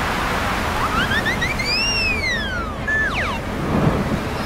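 Rain sound effect hissing steadily under a cartoon whistle effect: a few short rising chirps lead into a whistle that rises and falls, then a brief held tone and two quick falling glides.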